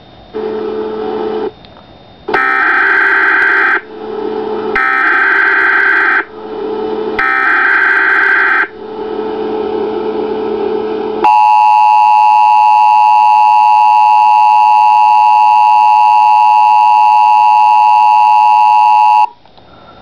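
Emergency Alert System signal: a short lower tone, then the three screeching SAME digital header bursts, then the steady two-tone EAS attention signal for about eight seconds, cutting off near the end.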